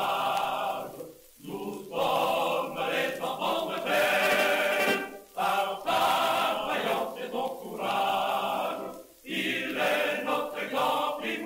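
A choir singing in long phrases, with short breaks about every four seconds.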